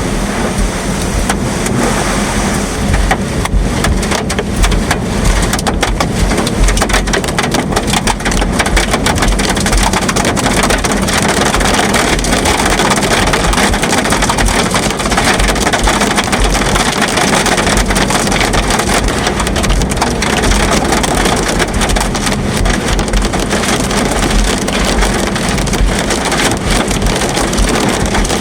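Heavy wind-driven rain from a rain-wrapped tornado's circulation, a dense steady hiss of many small drop impacts over a constant low rumble of wind.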